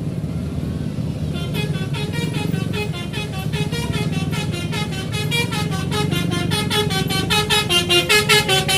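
A bus's telolet basuri musical air horn playing a quick tune of short tooting notes, starting about a second and a half in and getting faster and louder toward the end, over a steady low engine rumble.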